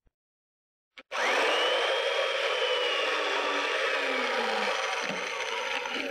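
Makita chain mortiser switched on about a second in, its motor whining up to speed and its chain cutting as it is plunged into the timber for a test cut. The motor then runs down and stops at the very end.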